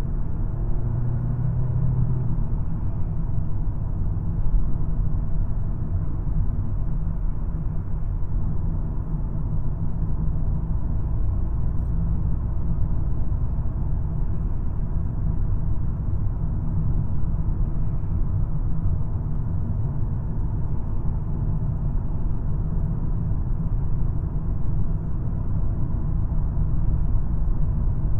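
A 2022 Volkswagen Golf R on the move, heard from inside the cabin: a steady deep rumble of its turbocharged 2.0-litre four-cylinder engine mixed with road noise.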